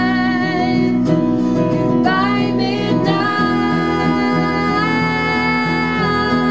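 Three voices singing long held notes in harmony over guitars, the chord shifting every second or two: a live unplugged band performance.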